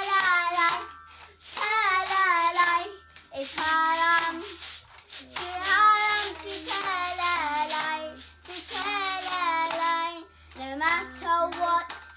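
Young children singing a song in short phrases with pauses between them, with jingling and rattling from their toy instruments, including a rice-filled water bottle shaken as a shaker.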